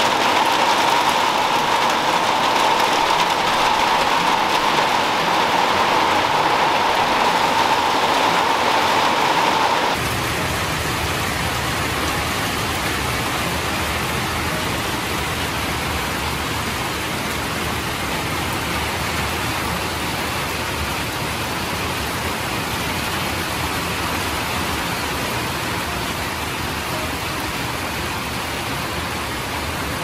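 Steady heavy rain falling, heard from under a covered porch, a little quieter after about ten seconds.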